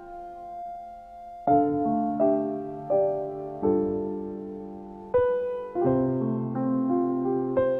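Slow, gentle piano music: single notes and soft chords struck every second or so and left to ring.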